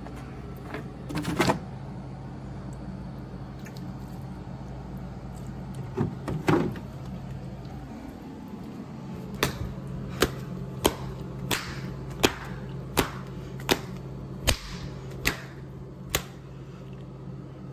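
A steady low hum with a few scuffling thumps, then a run of about ten short, sharp knocks evenly spaced about three-quarters of a second apart in the second half.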